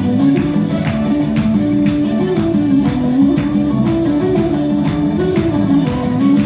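Armenian folk dance music: a melody line over a steady beat.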